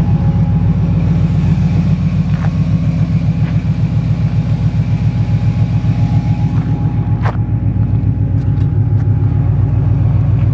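Chevy K10 pickup's engine and exhaust running steadily while the truck is driven, heard from inside the cab as a low drone with a fast even pulse. A few light clicks stand out, the sharpest about seven seconds in.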